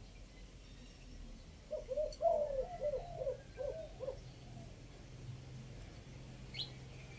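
Spotted dove cooing: a phrase of about eight short, low coo notes in quick succession, from about two to four seconds in. A brief high chirp from another bird follows near the end.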